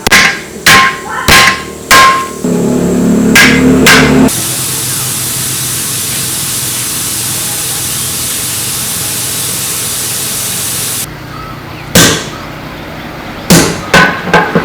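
A hammer striking metal, four ringing blows in quick succession, then a steady hiss lasting several seconds, then four more blows near the end.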